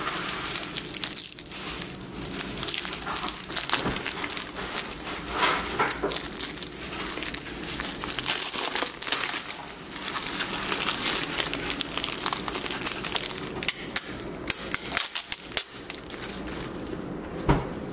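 Clear plastic protective wrap being pulled and peeled off a replacement phone screen-and-frame assembly, crinkling and crackling, with a run of quick sharp crackles near the end.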